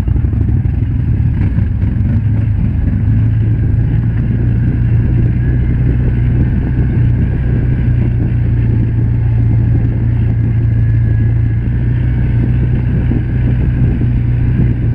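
Side-by-side UTV engine running at a steady pitch while the machine drives along a dirt trail, heard from inside the open cab.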